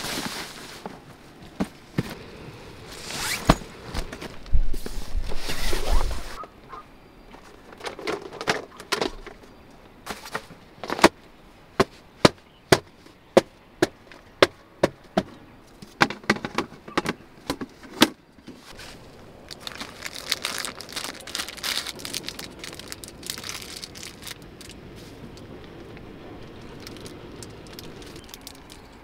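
Handling of camping gear inside a tent: rustling of fabric and bags with a few dull thumps, then a run of about a dozen sharp plastic clicks and knocks as a black plastic camp box is worked open, then softer rustling again.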